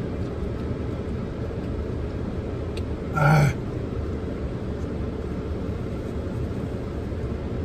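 A man's short breathy groan about three seconds in, a pained reaction to very hot sauce. Under it is a steady low rumble in the car cabin.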